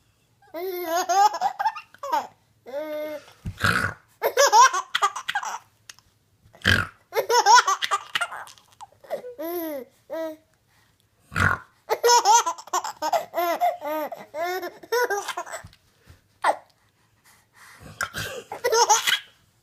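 A three-month-old baby laughing in repeated bursts of belly laughs, the pitch bobbing up and down. Between the laughs come several short snore sounds from its mother, each followed by more laughing.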